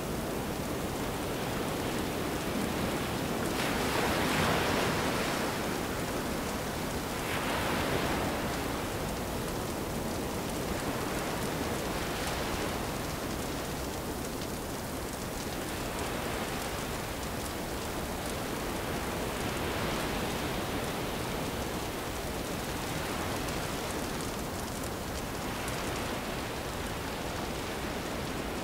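Ocean surf washing up a beach: a steady rushing noise that swells each time a wave comes in, loudest about four and eight seconds in.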